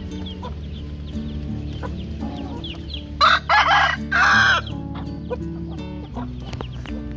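A rooster crows once about three seconds in: one loud call of about a second and a half, broken into three parts. Short clucks and chirps from the chickens come and go around it, over steady background music.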